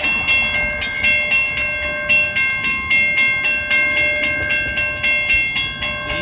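Railroad grade-crossing bell ringing in rapid, evenly spaced strikes, about four a second, each strike leaving a steady metallic ring. It is the warning that a train is approaching while the crossing gates come down.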